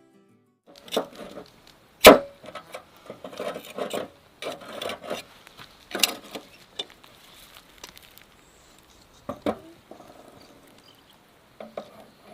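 Kitchen work sounds of utensils and dishes: scraping and rubbing with a string of knocks and clicks, the loudest knock about two seconds in and another sharp one about nine and a half seconds in.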